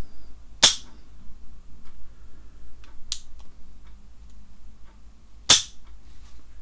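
KJW KC-02 airsoft trigger mechanism, fitted with a RogueWorx steel hammer, sear and Fang trigger, being worked by hand: two sharp metal clicks about five seconds apart, with a fainter, higher click between them.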